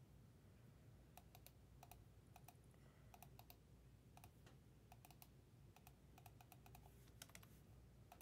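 Faint typing on a computer keyboard: short, sharp key clicks in quick runs of two to four, scattered over near silence.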